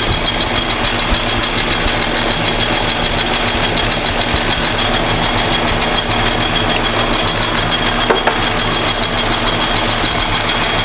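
Metal lathe running steadily, its spindle and three-jaw chuck turning, with a steady hum and a high whine from the drive. There is one brief click about eight seconds in.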